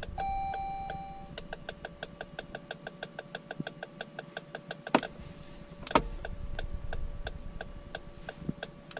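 Jeep Grand Cherokee turn-signal clicker hyperflashing: rapid even ticking, about six clicks a second. It is the sign that the LED bulb in the rear tail light draws too little current, so the car reads it as a burned-out bulb. A single warning chime about a second long sounds right at the start, and two louder knocks come around five and six seconds in.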